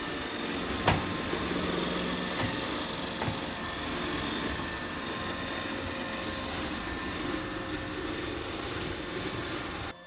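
An iRobot Roomba 800-series robot vacuum running on a hardwood floor. It gives a steady whirring motor noise with faint whining tones, and there is a sharp click about a second in.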